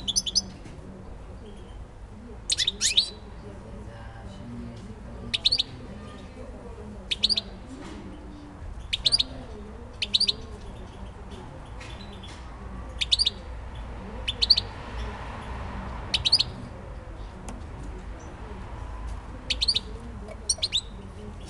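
Caged European goldfinch giving short, sharp chirping calls, about a dozen of them one to three seconds apart, over a steady low background rumble.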